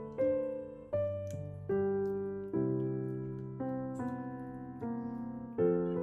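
Background music: a slow solo piano piece, chords struck about once a second and left to ring and fade.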